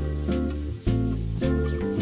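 Instrumental background music: sustained chords that change every half second or so over a steady beat.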